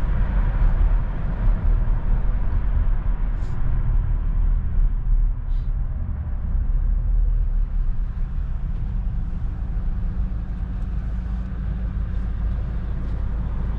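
Steady low rumble of engine and road noise inside a car's cabin while driving.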